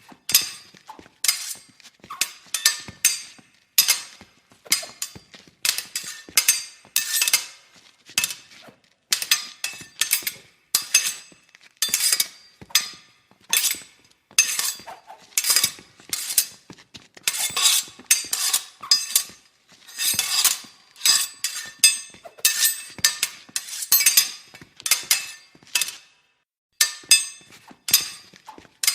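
Fencing blades clashing: many quick metal-on-metal strikes and scrapes in rapid flurries, each with a short ringing tone, with brief pauses between exchanges.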